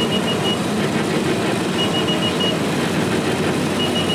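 Several garden tractors' engines running steadily as the tractors drive past one after another. A high electronic beep sounds over them in quick runs of four or five short beeps, about every two seconds.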